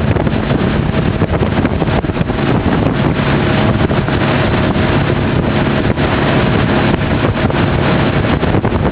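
Hurricane 2400 deck boat underway: wind rushes and buffets loudly over the microphone, with the boat's engine running at a steady pitch underneath.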